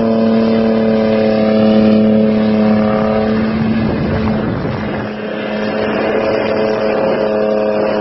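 Ford sedan's engine held at high revs in one steady note during a burnout. Around the middle the note drops out for a second or so under a rushing noise, then comes back steady.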